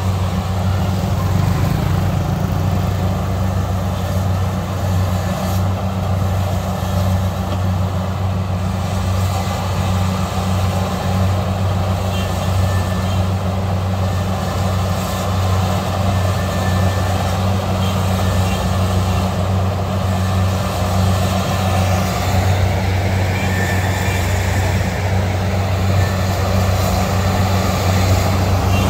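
Kubota DC70 combine harvester's diesel engine running steadily as the machine tracks slowly through boggy mud. It gets a little louder near the end as it comes closer.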